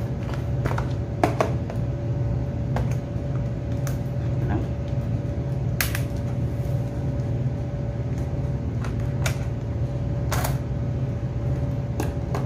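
Small scissors cutting the plastic shrink-wrap on a boxed face mask: scattered sharp snips and plastic rustles over a steady low hum.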